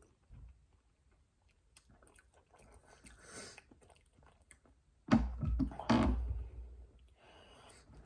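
A person chewing spoonfuls of beef stew close to the microphone: soft and sparse at first, much louder from about five seconds in.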